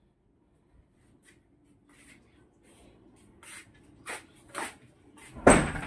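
Footsteps shuffling across a tiled floor, a series of short scuffs about every half second that grow louder, ending in a louder thump.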